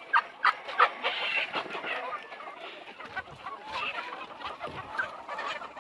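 A flock of local chickens clucking, many birds calling over one another, with a run of short sharp calls in the first second.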